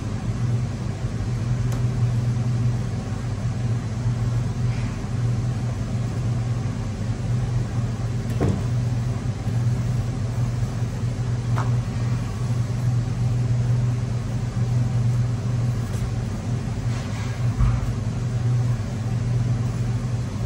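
Steady low machine hum of commercial kitchen equipment, with a couple of light knocks, about eight and twelve seconds in.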